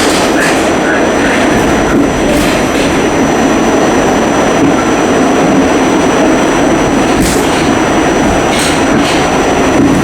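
Steady, loud roar of a vehicle in motion, with a thin high whine held throughout and a few brief clicks.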